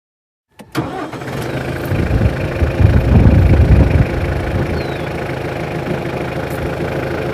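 New Holland Boomer 50 compact tractor's diesel engine running, coming in suddenly just after the start. It grows louder from about two to four seconds in, then runs steadily, while the hydraulics raise the mid-mount mower deck to its highest position.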